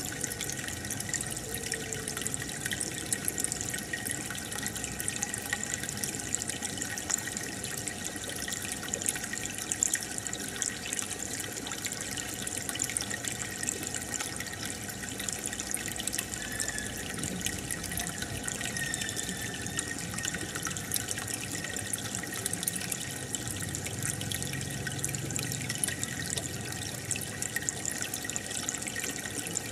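Aquarium aeration bubbling steadily, a continuous stream of small bubbles with water trickling and dripping.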